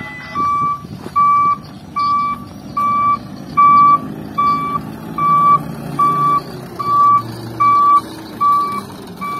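Dump truck's reversing alarm beeping steadily, about one and a half beeps a second, over the truck's diesel engine running as it backs up to the heap to tip its load of fill.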